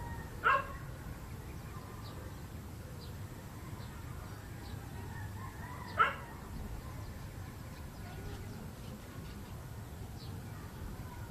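A dog barks twice, two short single barks about five and a half seconds apart, over a steady low rumble, with faint bird chirps.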